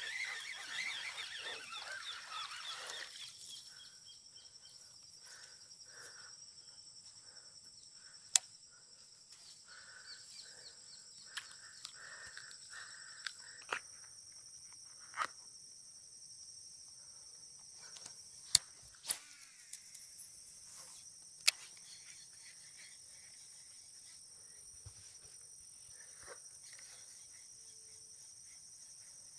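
Crickets in a steady, high, shrill chorus. About half a dozen sharp clicks stand out through the middle, louder than the chorus.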